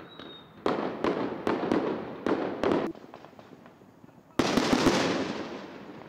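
Fireworks going off: a rapid string of about eight sharp bangs over two seconds, then one louder bang about four and a half seconds in, its echo dying away.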